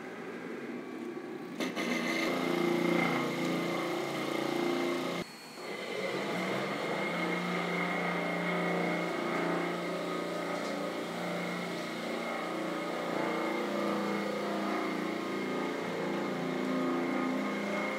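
Walk-behind concrete floor grinder grinding thinset mortar off a concrete slab, with its Makita dust-extraction vacuum running. It makes a steady machine drone with a high whine, growing louder about a second and a half in and dropping briefly about five seconds in.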